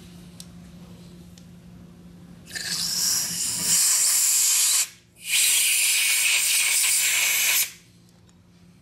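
Two long hissing blasts from a pressurized nozzle, about two seconds each with a brief break between, blowing the oil out of a freshly tapped head-bolt hole.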